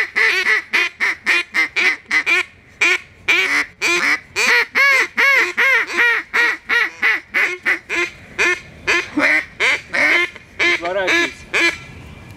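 Duck call blown in a fast, steady run of quacks, about three a second, each rising and falling in pitch: hen-mallard calling to draw in drakes.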